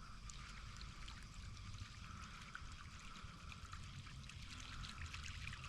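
Faint water trickling and dripping, with many small ticks and splashes.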